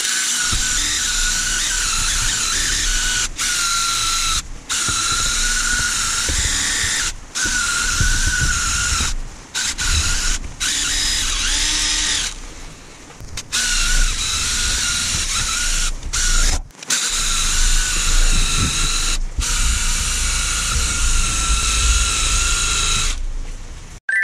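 Cordless impact driver spinning an SK11 Afro-kun Junior abrasive wheel against a scooter engine's corroded aluminium crankcase: a steady high whine, stopping and restarting every few seconds as the trigger is let off, and stopping near the end.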